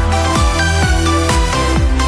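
Electronic dance background music with a steady kick drum beat, about two beats a second, under a stepping synth melody.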